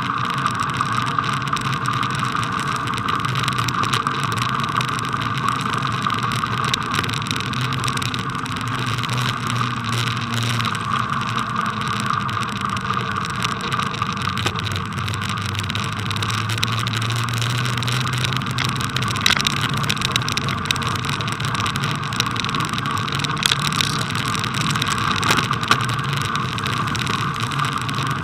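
Steady rolling noise of a bicycle on packed snow, picked up by a camera mounted on the bike, with a few sharp clicks from rattles over bumps in the later part.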